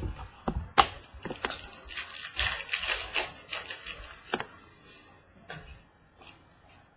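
Trading cards being handled and flipped through: cards sliding and rubbing against each other, with a string of sharp clicks and taps and a denser rustle about two seconds in, tapering off near the end.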